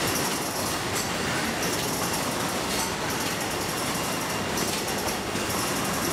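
Tea-box packaging machinery running steadily, a continuous mechanical clatter with a faint high whine.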